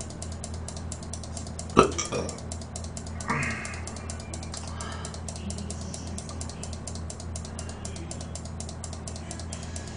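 Fast, even mechanical clicking, about nine clicks a second, over a low steady hum, with a single sharper knock just before two seconds in.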